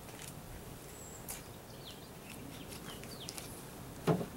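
Short bird chirps and whistles over quiet outdoor background, then, about four seconds in, a single loud wooden knock as the beehive's outer cover is gripped and lifted.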